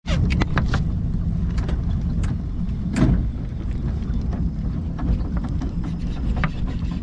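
Steady low rumble of a fishing boat on the water, with scattered light clicks and a louder knock about three seconds in.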